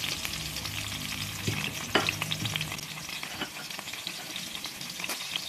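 Chopped onion and garlic sizzling in hot oil in a metal pan as they begin to sauté, a steady hiss with many small crackles and a few sharper pops about two seconds in.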